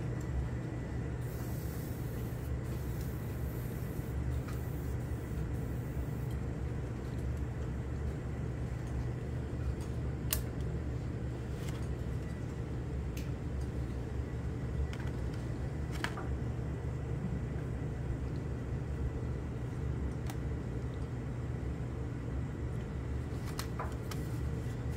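A steady low mechanical hum fills the room. Over it, a few light clicks of plastic model parts being handled and fitted come scattered through the middle, with several more near the end.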